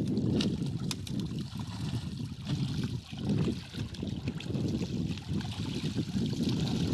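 Groupers thrashing and splashing in a crowded harvest net in shallow water, with scattered sharp splashes as fish are scooped into a plastic crate, over a steady low rumble.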